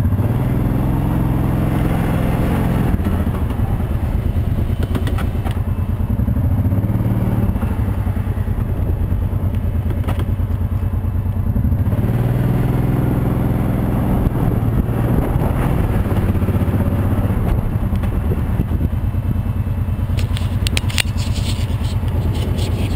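Kawasaki Brute Force 750i ATV's V-twin engine running at low speed over rough ground, the throttle rising and easing several times. Rattling and knocking come near the end as it bumps over the broken surface.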